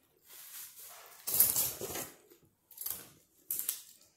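Close-up eating sounds: chewing a shawarma wrap, with a few short bursts of noise as the wrap and its paper are handled, the loudest about a second and a half in.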